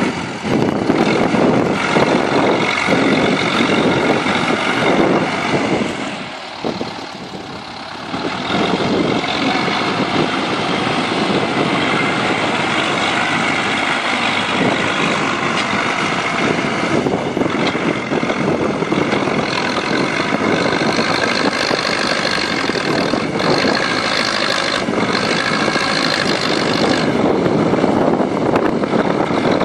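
Zetor tractor's diesel engine running hard while it works a front loader in a manure heap, dipping briefly about six seconds in.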